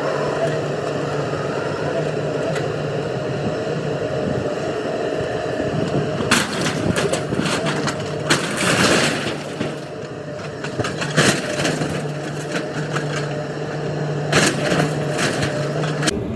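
Mini excavator engine running steadily while the timbers of an old wooden shed crack, splinter and break, with a run of cracking and crashing starting about six seconds in.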